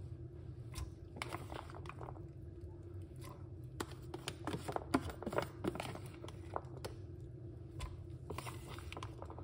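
A metal spoon scraping and knocking against a plastic tub as it scoops pomegranate seeds, and the seeds pattering into a plastic blender cup: a run of soft clicks and scrapes, thickest and loudest around the middle, over a steady low hum.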